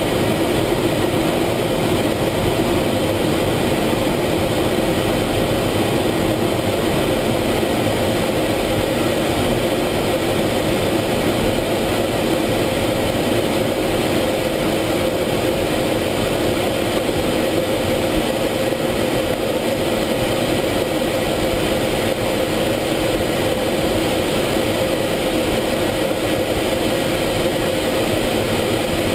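Steady cockpit noise of an F-16 fighter jet in flight: jet engine and airflow heard inside the canopy, an even drone with a constant low hum.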